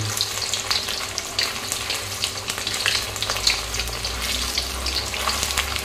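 Cornflour-coated paneer cubes sizzling and crackling in hot oil in a steel kadhai, with a metal spatula scraping and turning the pieces.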